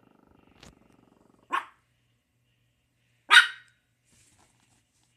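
Chihuahua growling low, then barking twice, sharp single barks about two seconds apart, the second louder.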